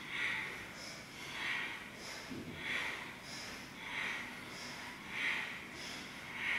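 Rhythmic audible breathing timed to seated spinal twists: a breath in and a breath out alternating about every half second, one full breath roughly every 1.3 seconds.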